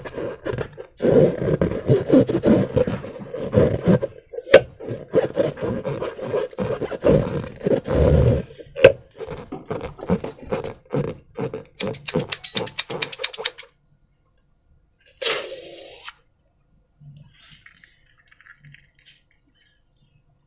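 Rubber balloons and slime being squeezed and rubbed by hand: a rough, crackling rasp with a steady buzzing pitch, coming in irregular bursts. About twelve seconds in it turns into a quick run of sharp clicks, followed by a short hiss a few seconds later and then faint squishy handling.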